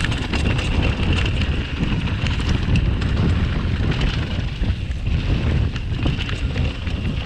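Wind buffeting the microphone: a steady low rumbling rush with scattered faint clicks.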